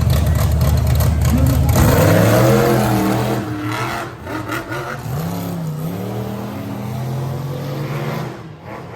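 Monster truck engines running hard, then revving up and down with a wavering pitch as they back off the throttle; loudest in the first two or three seconds.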